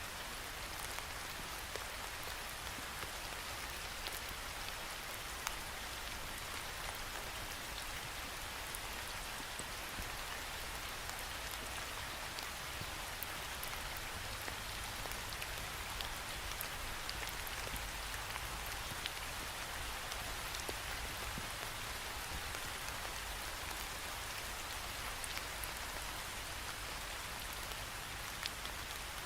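Steady rain falling against a window, a constant hiss dotted with the ticks of single drops striking the glass.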